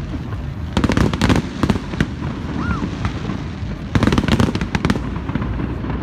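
Aerial fireworks bursting overhead, with two spells of rapid crackling, about a second in and again around four seconds in, over a steady low rumble.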